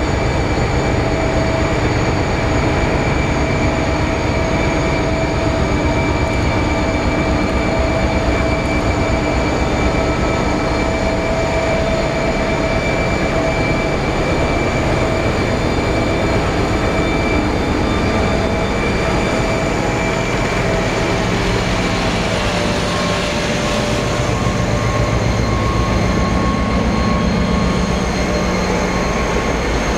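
Two Pacific National 81 class diesel-electric locomotives, each with an EMD two-stroke V16 diesel, running slowly past with a heavy rumble and steady whining tones. The grain hopper wagons start rolling by near the end.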